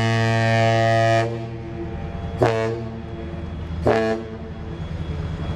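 Ship's whistle of an American Steamship Company vessel: a long blast cutting off about a second in, then two short blasts about a second and a half apart, over a steady low hum.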